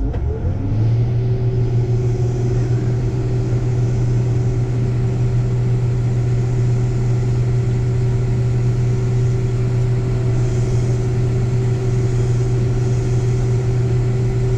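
Combine engine speeding up over about the first second, then running steady at high speed with a strong, even drone, while the last of the grain in its tank is unloaded into the grain cart.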